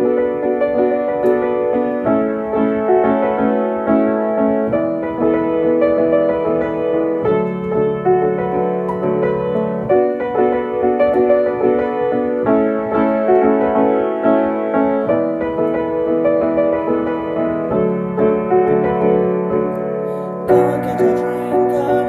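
Piano-sounding keyboard playing the opening of a song: repeated chords, changing about every two and a half seconds.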